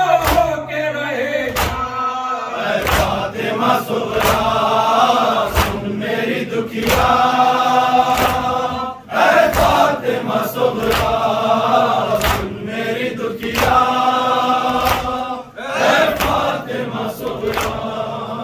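Men chanting a noha, an Urdu mourning lament, in unison behind a lead reciter, in phrases with short breaks between lines. Steady, regular hand slaps of matam (chest-beating) keep the beat under the chant.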